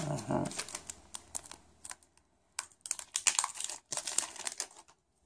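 Foil booster-pack wrapper crinkling and being torn open, a run of sharp crackles and rustles in clusters with short pauses.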